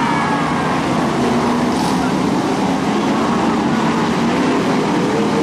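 A pack of BriscaF1 stock cars racing, their V8 engines running together as a loud, steady blend of engine noise.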